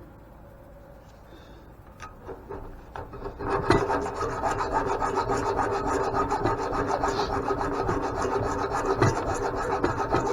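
A few clicks, then about three and a half seconds in a steady, fast rasping of a tool working against metal on the old grain mill, as stuck parts are cut or scraped free.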